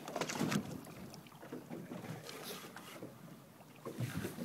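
Water sloshing and splashing against the side of a boat, with wind buffeting the microphone and a few light knocks.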